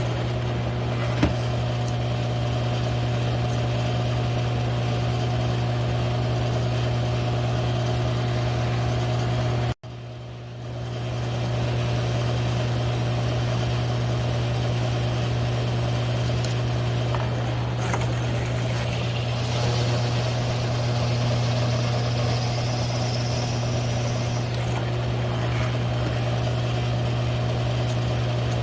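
G1007 mill-drill running steadily with a hum as its one-inch hole saw cuts through 3/8-inch steel plate. The sound drops out sharply for a moment about ten seconds in, then builds back up.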